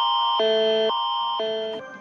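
Emergency alert alarm tone: two electronic pitched chords alternate high-low, each held about half a second. It fades and cuts out just before the end.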